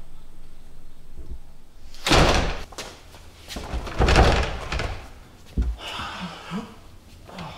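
A door slamming shut, with a loud thud about two seconds in and a second, heavier thud about two seconds later, each ringing on briefly, followed by fainter knocks.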